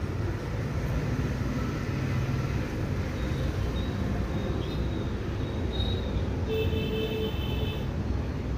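Steady low rumbling background noise, with a brief cluster of high tones about six and a half seconds in.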